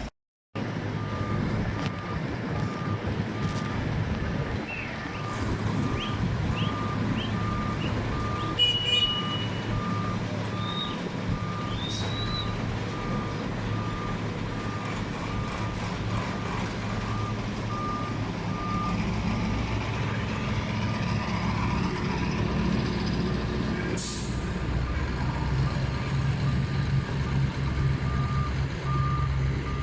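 Truck reversing alarm beeping at a steady, even rate over the low running of a diesel engine, likely a dump truck backing up. There is one sharp knock about two-thirds of the way through.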